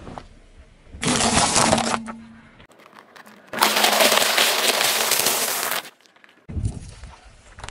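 A car tyre rolling over and crushing a row of puffed-rice sticks: a loud crunching crackle that starts about three and a half seconds in, lasts a little over two seconds and cuts off suddenly. A shorter crunch comes about a second in.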